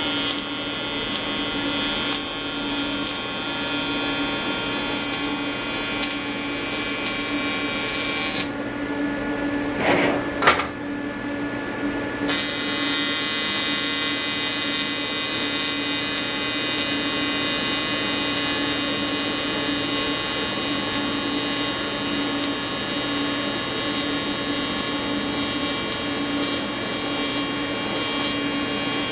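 AC TIG welding arc buzzing steadily on aluminium, from an Everlast 325EXT on advanced square wave at about 100–150 Hz. The arc breaks off about eight seconds in, with a short knock during the pause, and strikes again around twelve seconds in.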